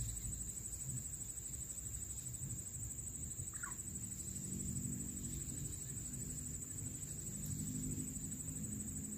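Steady high-pitched insect trill from the surrounding vegetation, with a single short bird chirp about three and a half seconds in, over a low background rumble.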